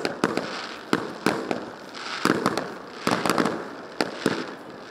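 Festive fireworks display: shells bursting in a string of sharp bangs, about one to two a second, each trailing off in an echo, with crackling between them.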